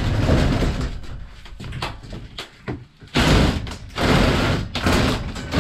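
A heavy object being shoved and dragged about on the floor of a van, in several scraping, bumping bursts about a second long each.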